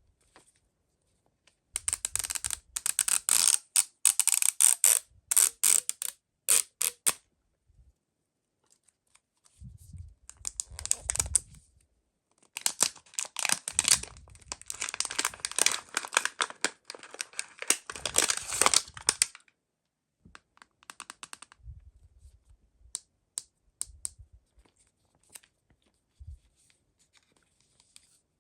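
Mystery-toy packaging being opened by hand: two long spells of crinkling and tearing, then scattered light clicks and taps over the last third.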